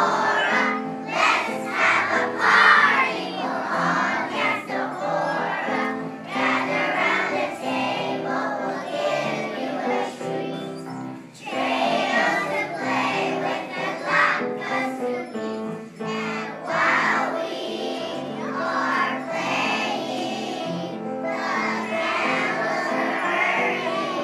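A group of young children singing a song together over a musical accompaniment.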